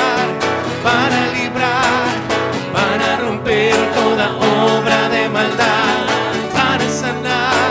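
Live Spanish-language worship music: a band with guitar playing while a voice holds wavering, vibrato notes.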